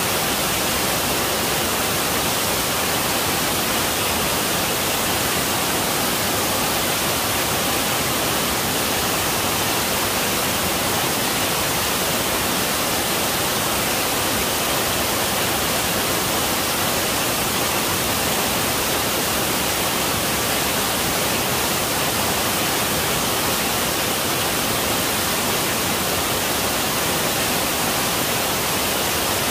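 Mountain waterfall pouring down a rock face: a steady, even rush of falling water.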